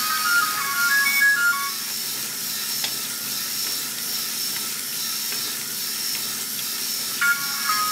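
LEGO Grand Carousel (set 10196) turning on its electric motor, with a steady whirring hiss and a thin high whine. Its electronic sound brick plays a simple, high-pitched carousel tune note by note; the tune breaks off about two seconds in and starts again near the end.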